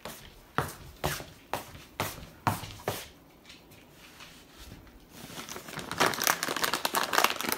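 Footsteps on a wooden floor, about two a second for the first three seconds, then a dense crinkling, rustling noise from about six seconds in.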